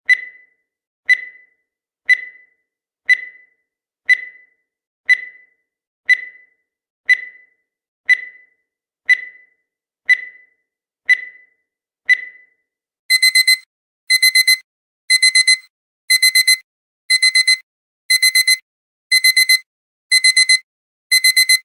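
Countdown timer sound effect: a short high ping once a second as the last seconds count down, then about twelve seconds in the count ends and a digital alarm-clock beep takes over, rapid high beeps in groups of four, one group each second.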